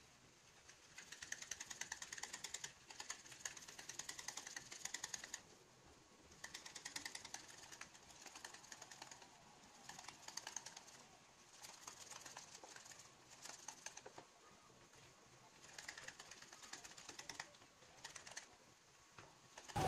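Wire whisk clicking rapidly against the sides of a bowl as butter and condensed milk are creamed by hand for buttercream. The clicking comes in bursts of a second or a few seconds, broken by short pauses.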